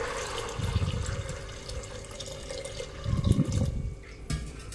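Water poured into an aluminium pressure cooker onto soaked dried peas, splashing and then tapering off over the first two to three seconds. Two short low bumps, about a second in and just past three seconds.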